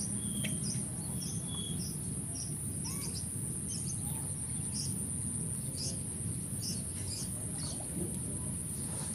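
Outdoor ambience: a steady high-pitched insect drone with short bird chirps repeating every second or so, over a low steady rumble.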